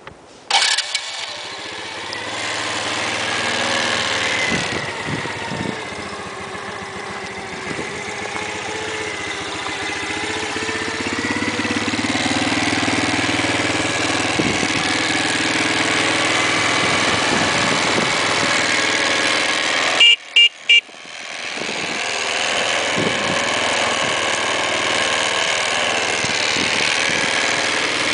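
A 2005 Kazuma Redcat KMX 110 ATV's 110 cc four-stroke single-cylinder engine catches about half a second in and then idles steadily, already warmed up. About twenty seconds in, the quad's horn gives three short beeps.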